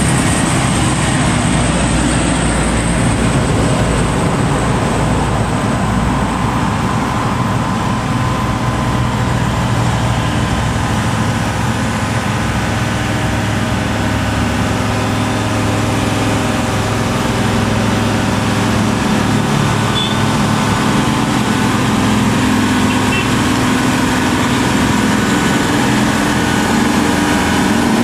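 Hino 500 series truck's diesel engine pulling steadily under a heavy load up a hill.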